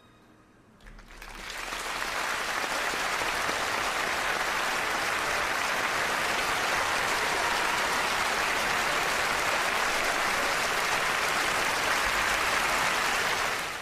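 Large audience applauding: the clapping swells in about a second in, holds steady and dense, then cuts off abruptly at the end.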